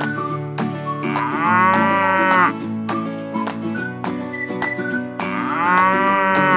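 Cow mooing twice, each moo long and drawn out, about a second in and again about five seconds in, over light children's background music.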